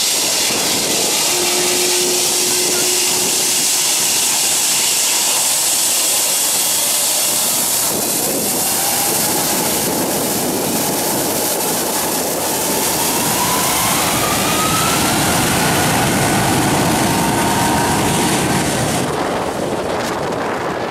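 Boeing 757 jet engines running loud behind the airliner as it lines up and begins its takeoff roll. A whine rises in pitch from about eight seconds in as the engines spool up to takeoff power, and the sound thins near the end as the jet moves away.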